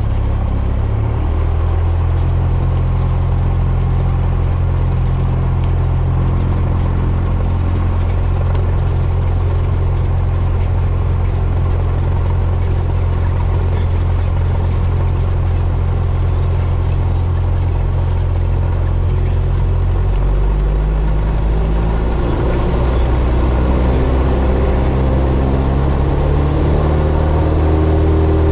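Cessna 172's piston engine and propeller heard from inside the cockpit, running steadily at low taxi power. About twenty seconds in the throttle comes up, and the engine note rises as it goes to full power for the takeoff roll.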